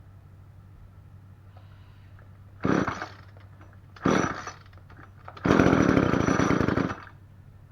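Small two-stroke string trimmer engine firing in three separate bursts: two short ones, then one running for about a second and a half before cutting out. This fits pull-starting where the engine catches only briefly each time.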